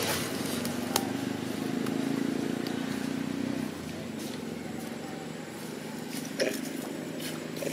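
Steady drone of a motor vehicle engine running nearby, which drops away a little under four seconds in, with people's voices in the background and a few sharp clicks.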